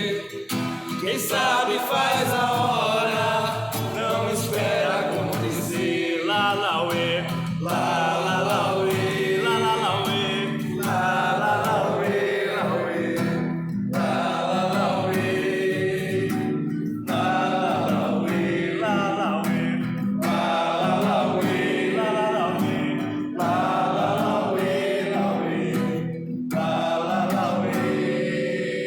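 Capoeira song sung in Portuguese to acoustic guitar (violão) accompaniment: voices carry the melody over steady guitar notes.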